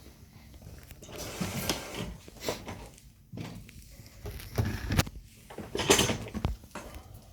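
Irregular knocks, scrapes and rustling of tools and a phone screen being handled on a workbench, with a sharp click about five seconds in.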